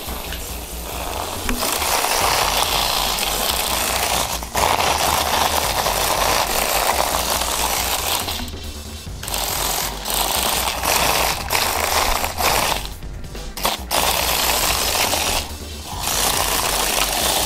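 Toy ladybug robot's small geared motor and scuttling plastic legs rattling rapidly as it runs across carpet and tile, stopping abruptly three times, over background music with a steady beat.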